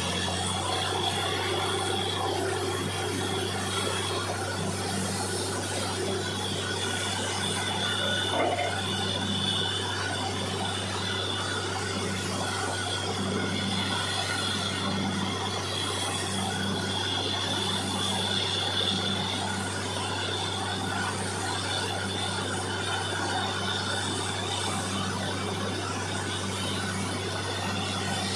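Truck-mounted borewell drilling rig running steadily while drilling and flushing the hole: a continuous machine drone with a low hum and a high whine that fades in and out.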